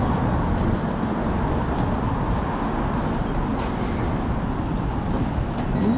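Steady city street noise: a low, even rumble of road traffic.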